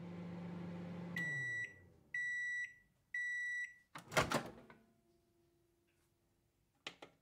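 Microwave oven running with a low hum that drops in pitch and stops a little over a second in, then three half-second beeps about a second apart signalling the end of cooking. About four seconds in comes a loud clunk as the door is opened, with a couple of faint clicks near the end.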